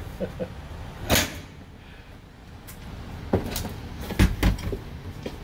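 Knocks and clunks inside an ambulance, a sharp one about a second in and several more around three to four seconds in, over a low steady vehicle rumble.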